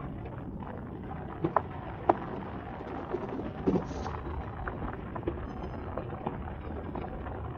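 Wind rushing over a camera microphone in paragliding flight, a steady rough rumble, with a few short sharp clicks about a second and a half, two seconds and nearly four seconds in.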